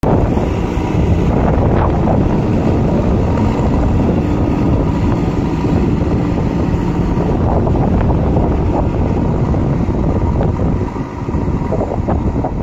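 JCB backhoe loader's diesel engine running steadily, with wind buffeting the microphone.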